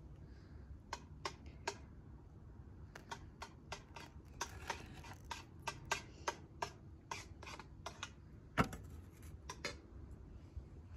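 A run of sharp, irregular clicks and light knocks, thickest in the middle, with one louder knock late on, over a faint low background hum.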